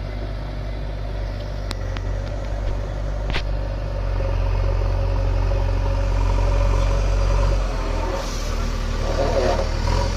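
JCB backhoe loader's diesel engine running steadily, growing louder about four seconds in, with two sharp clicks in the first few seconds.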